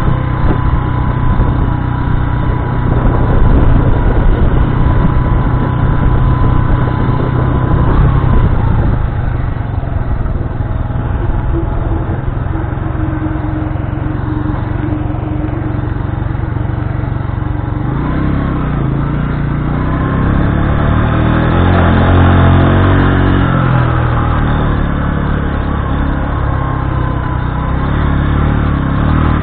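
Bajaj Boxer motorcycle's single-cylinder four-stroke engine running while riding on a dirt track. The engine note shifts about two-thirds of the way through, then rises and falls with the throttle.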